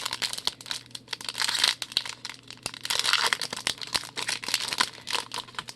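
A trading-card pack being torn open by hand: the wrapper crinkles and tears in irregular bursts, mixed with small clicks as thick cards are handled.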